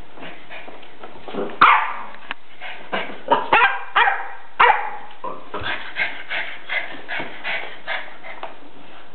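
Norwich terrier barking and yipping in play over a ball, a string of short sharp barks over a steady hiss. The loudest comes about one and a half seconds in, a quick cluster follows a couple of seconds later, and smaller yips come about three a second toward the end.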